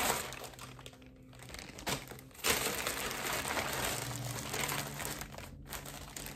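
Clear plastic packaging bag crinkling as it is handled and opened, quieter at first and louder from about halfway through.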